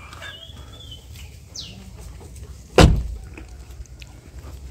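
A Toyota Innova's door shut once, about three seconds in: a single heavy thump.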